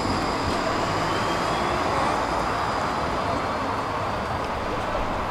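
Electric tram pulling away from a stop and rolling off along the track, its faint high electric whine rising briefly and then fading, over steady city street noise.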